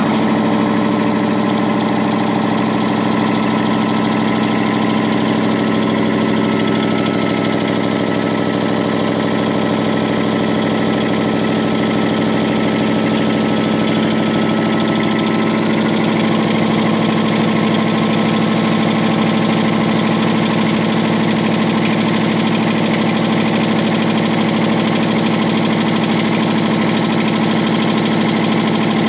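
Champion HRA25-12 air compressor, a 25 hp electric motor driving a reciprocating pump, running at a steady speed. It settles to speed in the first second, then keeps an even, loud hum.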